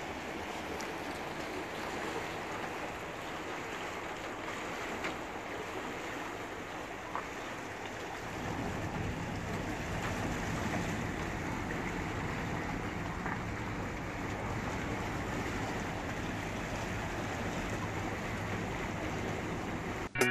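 A speedboat running on a river: a steady engine drone under rushing water and wind noise, growing louder and fuller about eight seconds in.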